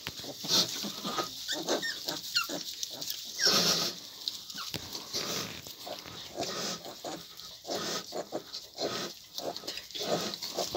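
Newborn piglets squeaking and grunting as they crowd at the teats of a farrowing sow, a string of short, irregular calls.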